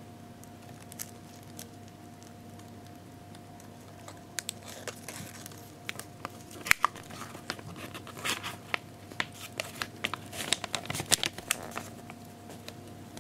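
Paper towel crinkling and crackling as fingers shift it under a pair of mating Japanese rhinoceros beetles. There are irregular sharp crackles, starting about four seconds in and thickest in the second half.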